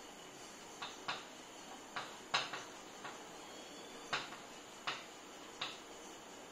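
Chalk writing on a blackboard: about nine short, sharp taps and brief scrapes at uneven intervals as letters are formed.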